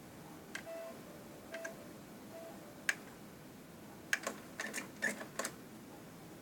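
Sony TC-K850ES cassette deck's transport mechanism clicking: a few separate clicks, then a quick run of clicks about four to five and a half seconds in, as the deck is hard to start.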